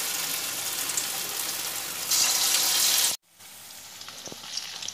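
Batter pakoras deep-frying in hot oil in a kadai: a dense, steady sizzle that swells for about a second, then cuts off abruptly about three seconds in. A quieter sizzle follows, with a few light ticks.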